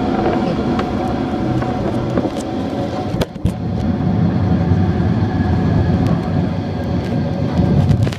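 Airliner cabin noise while the plane rolls along the ground after landing: a steady engine hum and low rumble. About three seconds in the noise dips briefly with a couple of sharp knocks, then a heavier low rumble follows.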